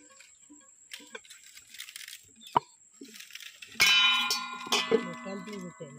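Metal cooking vessel clanging twice about four seconds in as mayonnaise is scooped into it, each strike ringing on and fading; before that, faint scraping and one sharp tap.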